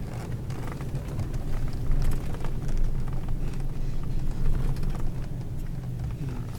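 Engine of a four-wheel-drive Toyota seven-seater running as it drives over desert sand dunes, with a steady low drone and scattered knocks and rattles from the bumps. The engine swells louder about two seconds in and again past the middle.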